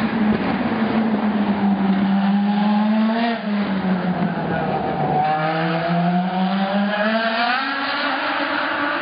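Race car engines running on the street circuit, their pitch climbing as they accelerate, with a drop in pitch about three and a half seconds in.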